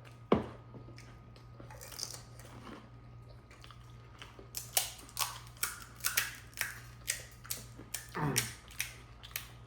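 Chewing crisp panipuri shells: short crunches, about two a second through the second half, after a single sharp crack near the start.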